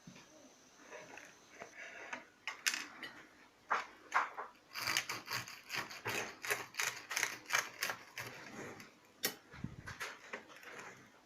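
Knife cutting through a crisp pan-fried mushroom burger, giving a rapid run of sharp crunching crackles that grow dense about five seconds in and thin out near the end.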